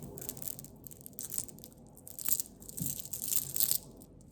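Rustling and crinkling handling noise as pieces of costume jewelry are picked through, in uneven bursts that grow busier in the second half, with a few faint clicks.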